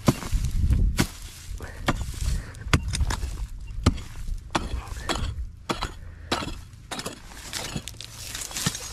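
Hand digging tool working into loose soil in a metal-detecting hole: an irregular string of sharp scrapes and knocks, about one or two a second.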